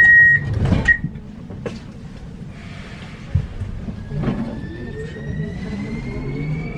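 Warsaw Metro Škoda Varsovia train: the door-closing warning beep ends in the first second and the sliding doors shut with a knock. After a clunk about four seconds in, the train pulls away, its traction motor whine rising steadily in pitch over a low rumble.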